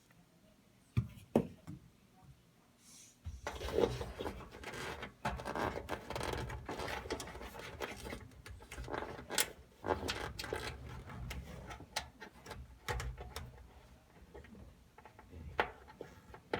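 Hands working a wire connector onto the terminal of a dryer thermal fuse: two sharp clicks about a second in, then, from about three seconds in, continuous rubbing and scraping against the metal cabinet with many sharp clicks.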